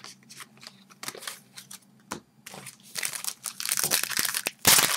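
Trading card pack wrapper crinkling and tearing as a pack is opened by hand: a few light crackles at first, growing into dense crinkling about halfway through, with a loud crackle near the end.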